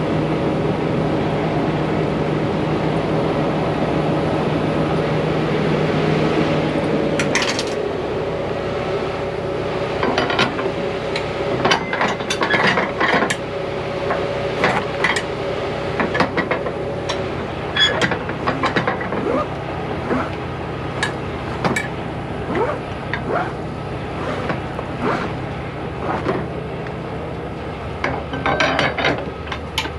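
Flatbed trailer strap winches worked with a winch bar to loosen the cargo straps: irregular metallic clicks, ratchet-pawl clicking and knocks from about ten seconds in. Before that, a steady engine hum dies away at about seven seconds.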